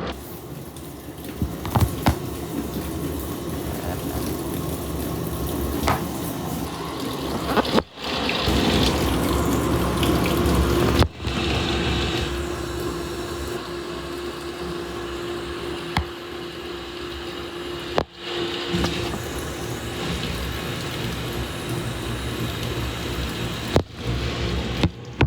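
Samsung washing machine running with water rushing in as it fills, the sound breaking off briefly several times; a steady hum runs under the middle stretch.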